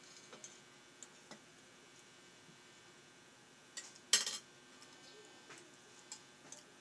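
Spoon and fork clinking against plates and a metal soup bowl while eating: a few light scattered taps, with a louder clatter about four seconds in.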